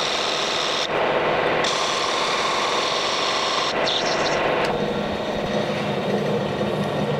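Metal lathe turning a bronze part, the tool taking a light cut with a hissing cutting noise over the machine's running hum. The cutting noise drops out briefly about a second in and stops at about four and a half seconds, after which a steady low hum remains.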